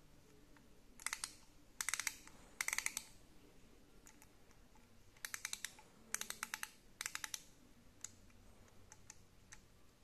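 Ratchet mechanism of a Merlin ratchet screwdriver being worked back and forth, giving six short bursts of rapid clicking in two groups of three, followed by a few single clicks near the end.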